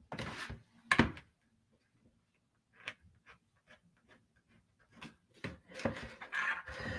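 A pen scratching lines on paper, with the paper and hands brushing and shifting on a wooden table. There is a sharp knock about a second in, and a denser run of scratching and rubbing near the end.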